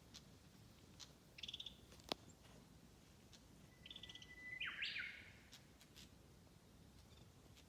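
Wild songbirds singing faintly: short rapid high trills, and one longer song, a steady held whistle that breaks into a louder burst of notes about five seconds in. A single sharp click about two seconds in.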